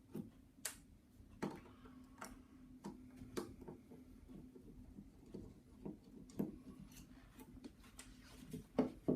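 Irregular small clicks and taps of a Torx driver working on the back of a ratchet head, about one or two a second: the two screws being backed out and the metal parts handled.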